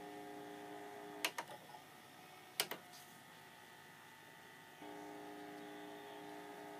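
Faint electrical buzz in a VHS tape's playback audio. It cuts out about a second in and returns near the end, with two pairs of sharp clicks in the gap.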